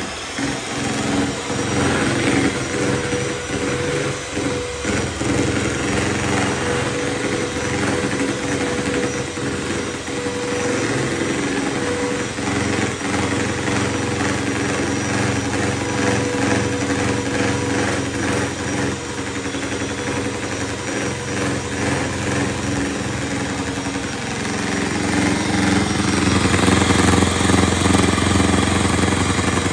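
Italia 300-watt electric hand mixer running steadily, its beaters whipping chilled Tropolite whipped cream in a plastic bowl until it is stiff. The mixer sound grows louder in the last few seconds.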